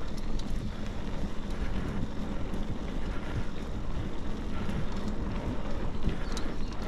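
Wind buffeting the microphone over the steady rumble of mountain bike tyres rolling on a dirt forest track, with a few scattered clicks.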